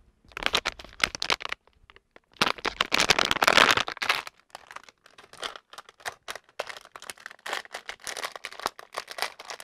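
Plastic packaging bags crinkling and rustling as they are handled and unwrapped, in several spells of crackling, loudest in a long spell from about two and a half to four seconds in.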